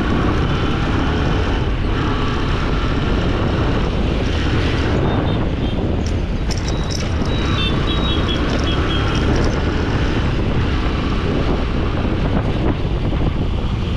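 Road traffic noise with wind rumbling on the microphone while travelling through city streets, steady throughout. A short run of high beeps sounds about halfway through.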